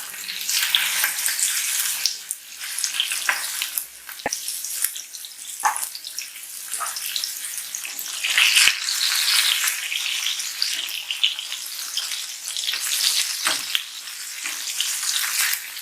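Spice-marinated fish shallow-frying in hot coconut oil, sizzling steadily with a few sharp clicks along the way.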